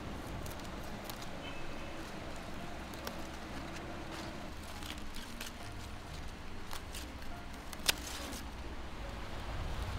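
Scissors snipping garland chrysanthemum stems every second or two, with leaves rustling; one sharp snip a little before the end is the loudest. Soft music plays underneath.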